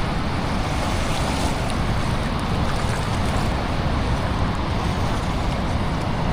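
Steady rush of water pouring over a dam spillway, an even noise with a strong low rumble and no let-up.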